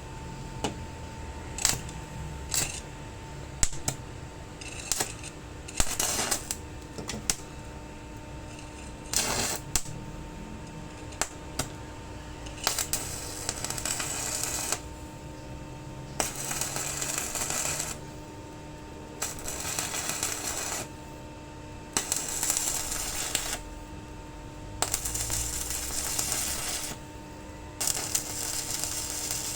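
Scattered sharp clicks and taps, then from about halfway in a run of crackling noise bursts, each a second or two long, starting and stopping abruptly, over a steady electrical hum.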